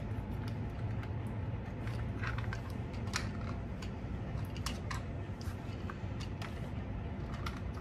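Hard plastic parts of a phone-holder mount clicking and clattering as they are handled and pushed together: irregular sharp clicks over a steady low hum.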